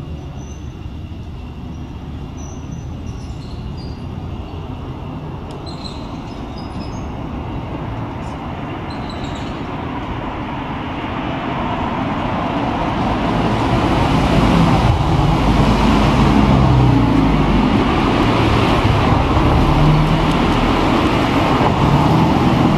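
Road traffic on a city street: cars running past, swelling to a louder, rumbling level about halfway through as vehicles come close.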